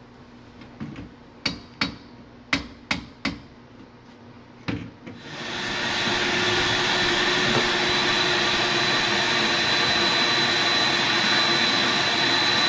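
Sharp metallic knocks, seven or so over about five seconds, as a screwdriver is struck to punch out the knockout plug in the garbage disposal's dishwasher inlet. Then a motor starts and runs loud and steady with a high whine.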